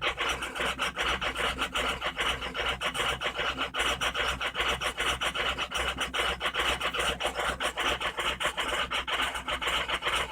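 A Ford 6.0 Power Stroke V8 diesel idling rough, with a rapid, uneven clatter. The rough idle comes with low injection control pressure, the ICP having dropped to about 875 and the IPR to 32.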